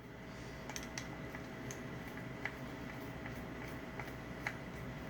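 Faint, scattered small clicks and ticks from handling and working on the parts of an electronic hotel door lock during disassembly, roughly one every half second to second, over a faint steady hum.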